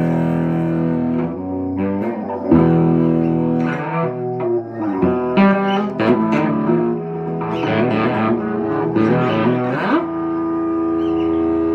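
Electric guitar playing: chords strummed and left to ring, a stretch of changing notes in the middle, then a slide up into a final chord that rings out near the end.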